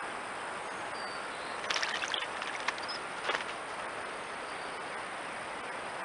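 Eastern bluebird's wings fluttering as it drops onto the birdbath rim: two short flurries of quick clicks, about two seconds in and again a little after three seconds in, over a steady hiss from the trail camera's microphone.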